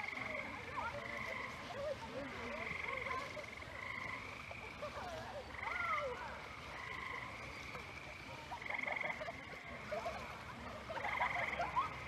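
A chorus of frogs calling: short, rapid pulsed trills about half a second long, repeating roughly once a second and sometimes overlapping, with fainter wavering chirps beneath.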